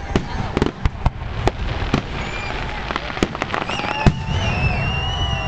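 Aerial fireworks bursting overhead: a rapid run of bangs and crackling. About four seconds in, a long high whistle sets in, with a few short gliding tones around it.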